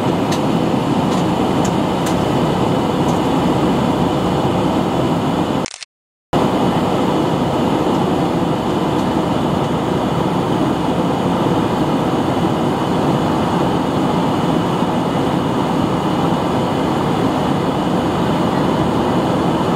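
Steady roar of jet engines and rushing air heard inside an airliner cabin during the climb after takeoff. The sound cuts out completely for about half a second around six seconds in, then resumes unchanged.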